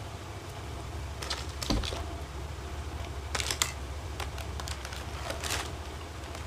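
Scattered light clicks and crinkles of hands handling and opening a plastic packet holding a knitted glove.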